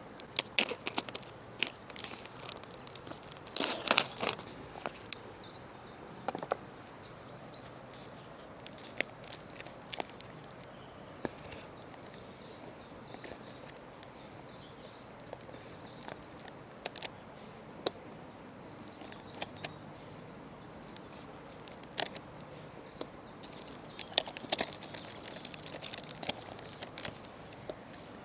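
Rustling and crinkling of things being handled, with scattered clicks and small knocks, busiest near the start and again near the end; birds chirp faintly in the background.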